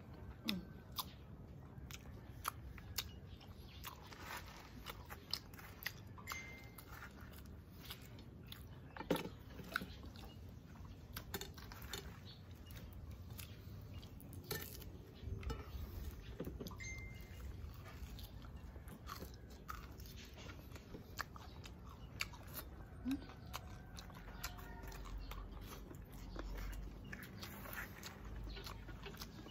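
A person chewing and eating close to the microphone, with many small irregular clicks of mouth sounds.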